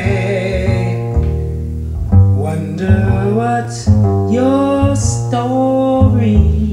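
Instrumental jazz passage: a plucked guitar line over low bass notes that change about every second, with some gliding melody notes.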